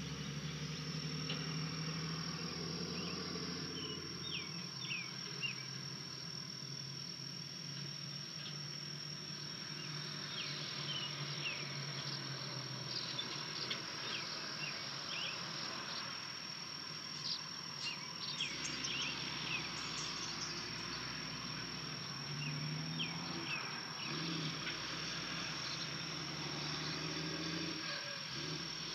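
Outdoor ambience at a treetop nest: a steady high-pitched whine runs throughout, with many scattered short chirps of small birds and a low rumble underneath.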